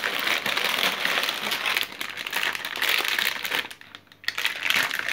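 Shiny foil blind-bag packets crinkling and rustling as hands rummage through a box of them and lift one out, with a brief pause about four seconds in.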